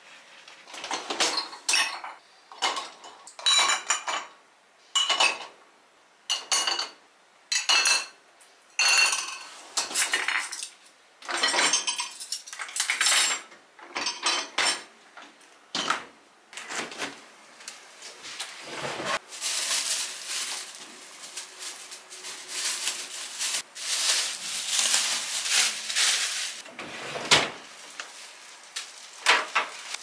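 Dishes, glassware and cutlery clinking and clattering as they are handled, a string of separate sharp clinks with a brief ring, turning into denser, more continuous clattering in the second half.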